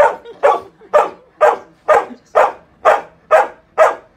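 A Samoyed barking repeatedly at a smaller dog, in a steady run of short, loud barks about two a second.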